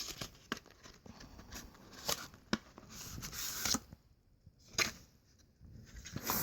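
Phone box contents being handled: scattered light clicks and taps, with brief rustles of paper and card.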